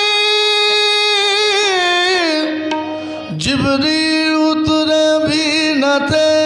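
A male voice sings long, held notes over a steady harmonium drone. About halfway in, a new phrase starts and a few tabla strokes come in.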